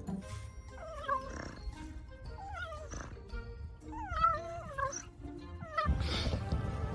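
A pet animal's wavering, whining cries, several in a row rising and falling in pitch, over background music. Near the end a louder rustling noise takes over.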